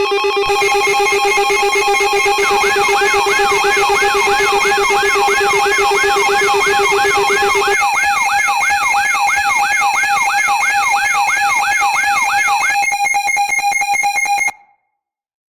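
Loud layered electronic alarm tones: several steady pitches held together, joined after a couple of seconds by a siren-like warble sweeping up and down about twice a second. The lowest tone drops out about halfway through, the warble stops a little later, and everything cuts off suddenly about a second before the end.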